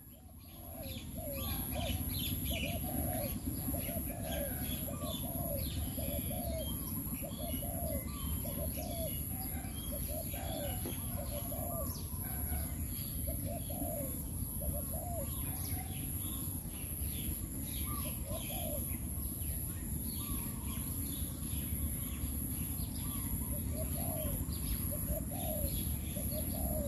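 Doves cooing over and over in short, arched notes, with small birds chirping higher up, over a steady low rumble and a thin steady high tone.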